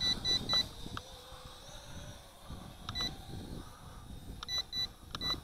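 Short high-pitched beeps from the ZC Toys Z1 quadcopter's remote controller, a quick run of three, a single beep about three seconds in, then more quick pairs near the end. This is the repeating beep that signals headless mode is switched on.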